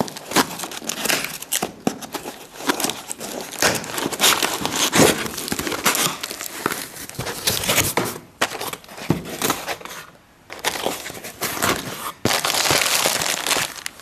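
Brown paper wrapping and a cardboard box being handled and opened: irregular crinkling, rustling and crackling. There is a short pause about ten seconds in, then a dense stretch of crinkling near the end.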